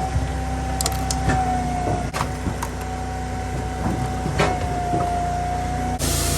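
Firewood processor running steadily under load while processing ash logs: its engine hums, a steady hydraulic-type whine sits above it, and the wood and machinery give off scattered sharp knocks and clunks. A louder hiss comes in near the end.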